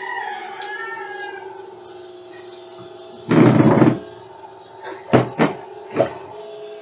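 A loud rustling bump of something brushing against the recording device, then three sharp knocks or clicks in quick succession, over a faint steady hum.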